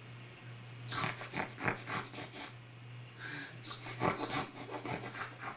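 A woman nuzzling a baby, making quick kissing smacks and snuffling breaths in two flurries, over a steady low hum.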